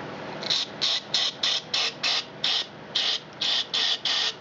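Rapid, evenly spaced short hissing sprays, about three a second, starting about half a second in: a small-engine carburetor's passages being sprayed through, to check that flow comes out the bottom of the carburetor.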